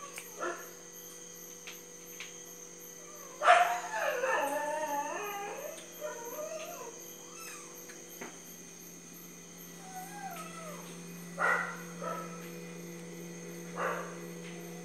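Drawn-out, wavering animal howls: a loud one starts about three and a half seconds in, several overlap for a few seconds, and shorter calls follow near the end.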